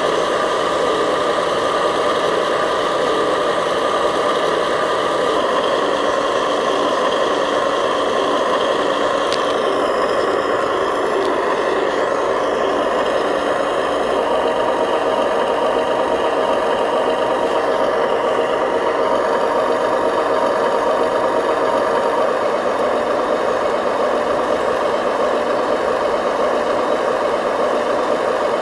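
Remote-control dump truck running, a steady, unbroken truck-engine drone.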